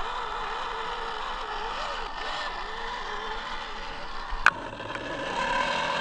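Electric motor and geared drivetrain of a scale RC off-road truck whining as it is driven, the pitch wavering up and down with the throttle. A single sharp click sounds about four and a half seconds in, and the running noise grows a little louder after that.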